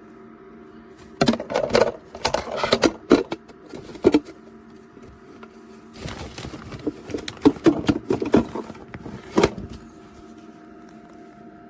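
Small compact dehumidifier running with a steady hum and a faint whine. Two stretches of loud clattering and knocking, a few seconds each, break over it, as of something being handled near the microphone.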